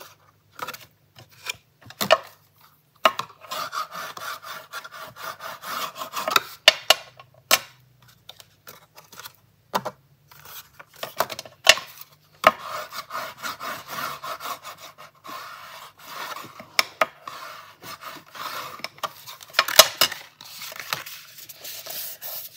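Cardstock being rubbed and handled, with long scraping strokes broken by many light clicks and taps.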